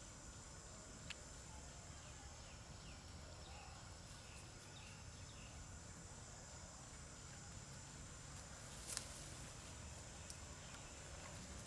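Faint outdoor ambience: a steady high-pitched insect buzz, with a few soft chirps a few seconds in and a single sharp click about nine seconds in.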